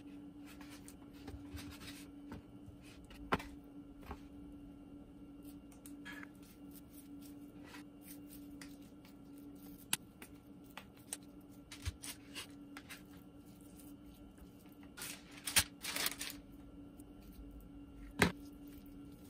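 Hands squeezing and patting raw ground beef into small patties: soft, wet squishing with faint sticky clicks, and a few louder pats near the end.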